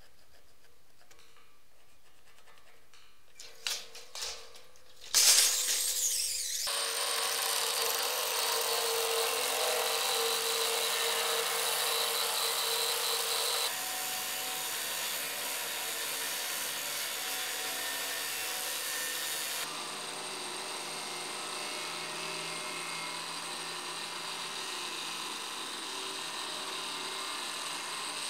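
Angle grinder starting up about five seconds in, after a few light clicks, then cutting through a steel beam with a steady grinding noise. The level steps down slightly twice as the cut goes on.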